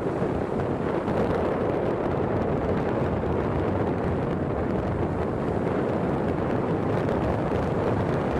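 Steady wind rushing over the microphone, an even outdoor rumble and hiss.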